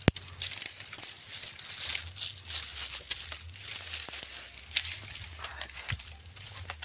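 Close rustling and crackling, with many small sharp clicks over a steady low rumble.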